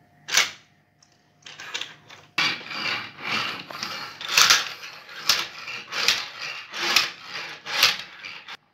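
Plastic toy cars pushed back and forth across a wooden tabletop, their wheels and bodies rubbing and scraping in a repeated rhythm a little faster than once a second. A sharp knock comes just after the start.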